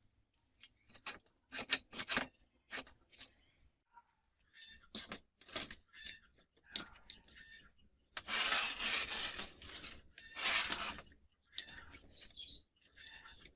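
Small metal parts clinking and knocking as they are handled, with two longer rasping scrapes a little past the middle.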